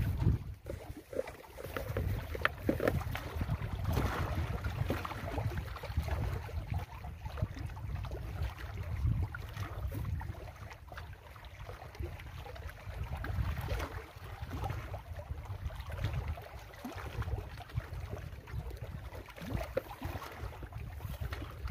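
Wind buffeting the microphone in an uneven low rumble, with small waves lapping and splashing against shoreline rocks.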